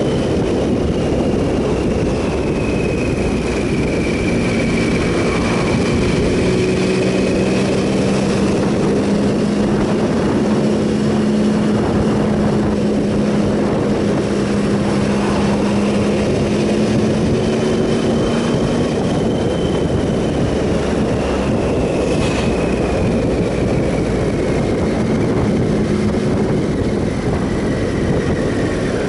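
Triumph Sprint ST 1050's three-cylinder engine running at a steady road speed, its note rising and falling gently, under a constant rush of wind. A faint high whine drifts slowly up and down in pitch.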